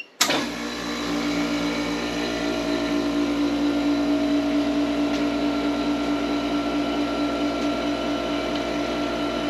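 Vevor DZ-260A chamber vacuum sealer's vacuum pump switching on abruptly and running with a steady hum, evacuating the chamber during the 25-second vacuum stage of a seal cycle.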